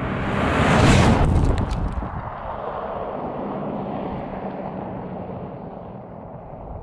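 Subaru XV driving fast past on a loose gravel track: engine and tyres on the gravel swell to a loud rush about a second in, with a few sharp clicks just after, then fade as the car moves away.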